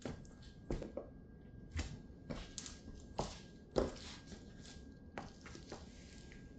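Stiletto-heeled patent boots stepping through crushed tomato pulp on a hard floor: about ten sharp, irregular heel clicks and knocks with wet squelching between them as the wearer walks off.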